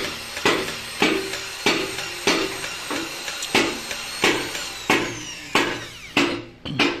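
Steady metal hammer blows on the cast-iron cylinder head of a Mitsubishi Fuso truck's D15 diesel under overhaul, about one and a half strikes a second, each ringing briefly. Near the end the rhythm breaks into a quick pair of blows.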